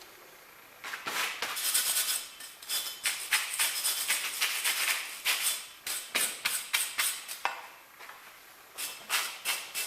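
Rapid metal-on-metal strikes, like a hammer driving on steel parts, several a second with a bright ring, starting about a second in and pausing briefly before picking up again near the end.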